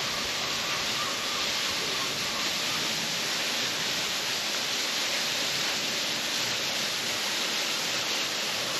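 Steady rush of water spilling down through rocks in a mountain stream, an even hiss that does not change.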